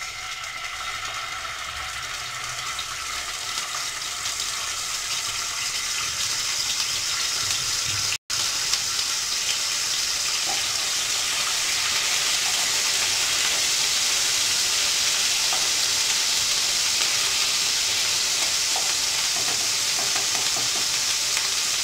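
Garlic-ginger paste sizzling as it fries in hot oil in a kadai: a steady hiss that grows louder over the first several seconds. A spatula stirs it in the pan near the end.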